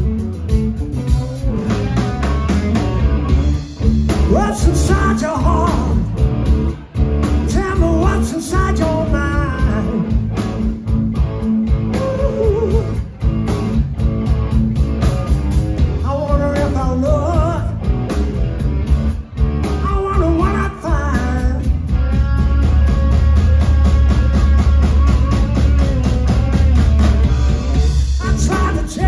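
Live blues-rock band playing loudly: electric guitar, bass and drum kit, with a wavering lead melody over a steady beat.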